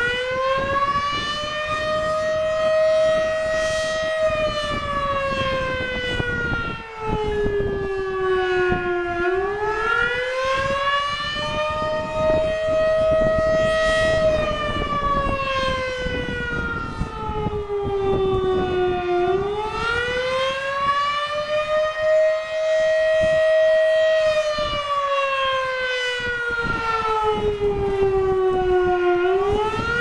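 Model 5B outdoor warning siren sounding a wail for its weekly test: the pitch rises and falls slowly, about once every ten seconds, three times over.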